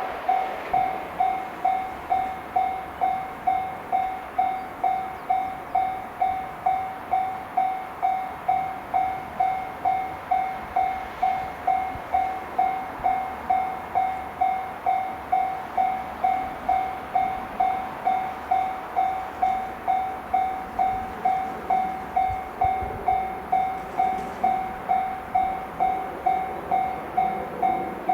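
Japanese level-crossing warning bell ringing steadily, an electronic ding about twice a second, over faint rail noise.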